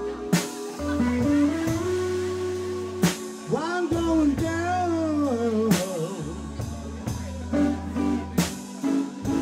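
Blues-rock band playing an instrumental passage. A lead electric guitar plays gliding, bent notes that waver up and down, over a steady bass line and drum kit hits.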